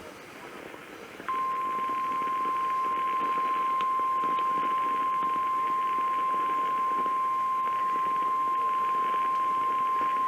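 NOAA Weather Radio 1050 Hz warning alarm tone through a radio receiver: one steady, unwavering high tone that starts about a second in and holds for about nine seconds over faint radio hiss. It is the alert that announces a warning broadcast, here a flash flood warning.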